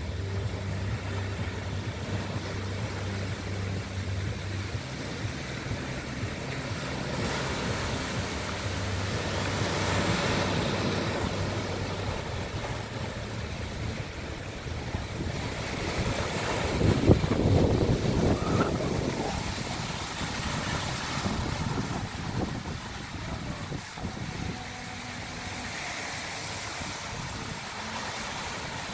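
Small waves breaking and washing up a sandy beach in slow swells, the loudest wash about two-thirds of the way through. A steady low engine hum runs underneath for roughly the first twelve seconds.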